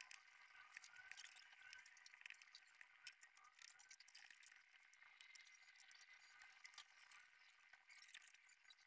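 Near silence: faint background hiss with scattered small ticks.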